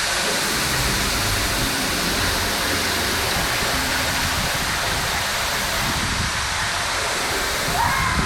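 Steady rushing noise with a fluttering low rumble: wind buffeting the microphone on a moving chairlift.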